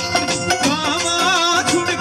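Punjabi folk music from a live stage band: a steady hand-drum and tambourine beat, with an ornamented, wavering melody line coming in about half a second in.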